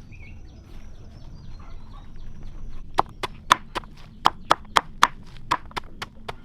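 A blade chopping on wood, about a dozen quick, sharp strikes at roughly four a second, starting about halfway through.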